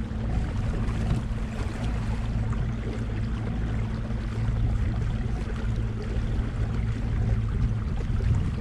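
Small boat motor running steadily as the boat moves along, a low even hum, with water and wind noise over it.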